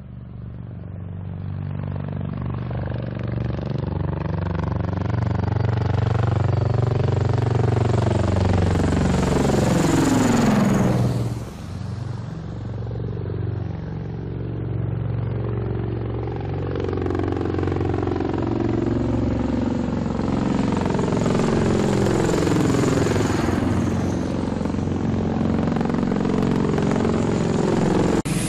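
A loud engine-driven vehicle or aircraft passes close by, its engine note rising, then dropping sharply in pitch as it goes past about eleven seconds in. A second pass swells and fades around twenty-two seconds.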